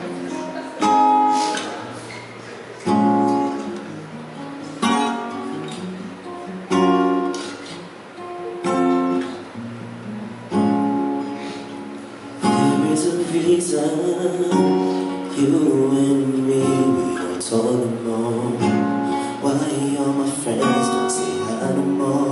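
Acoustic guitar playing a song's introduction: single chords struck about every two seconds, each left to ring, then from about halfway through a busier, continuous strumming pattern.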